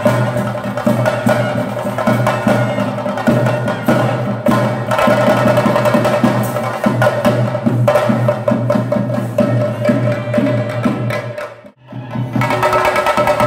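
Chenda drums played with sticks in a fast, dense, continuous rhythm. The drumming drops out for a moment near the end, then resumes.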